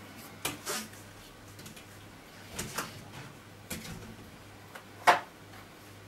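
Hard plastic clicks and knocks from a Miele cylinder vacuum's hose, wand and floor head as the parts are unclipped and handled. A handful of scattered clacks, the loudest about five seconds in.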